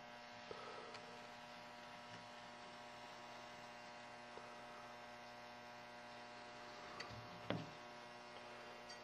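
Near silence: a steady low electrical mains hum, with a single soft knock about seven and a half seconds in.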